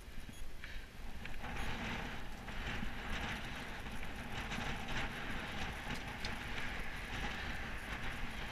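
Wind rushing over a helmet-mounted action camera and tyre noise from a road bike ridden along tarmac, a steady low rumble with a broader hiss that comes in about a second and a half in.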